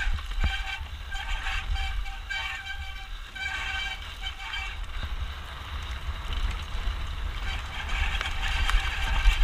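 Mountain bike disc brakes squealing in repeated bursts during a downhill descent, over a steady low rumble of wind on the camera microphone and tyres on the trail. The squeal comes in short bursts through the first few seconds, eases off, and returns near the end.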